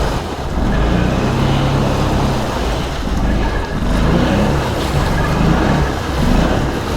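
Can-Am Outlander ATV engine revving up and down as the quad works through mud.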